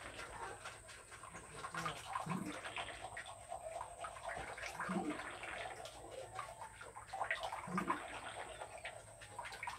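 A toothbrush scrubbing teeth: a rapid, scratchy brushing noise through a foamy mouth, with a short low sound about every two to three seconds.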